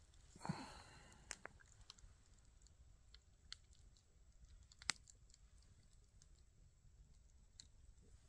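Near silence, with a brief rustle about half a second in and a few faint, scattered sharp clicks, the loudest about five seconds in.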